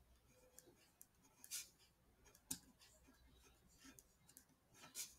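Pen writing on paper: faint scratching strokes, with louder ones about a second and a half in and near the end, and a sharp tick about two and a half seconds in.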